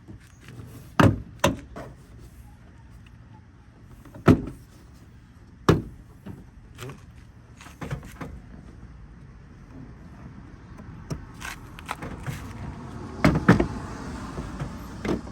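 Plastic retaining clips of a Scion xB rear door panel snapping loose as the panel is pried off, with handling noise between. There are sharp snaps about a second in, at about four and six seconds, and a quick cluster near the end.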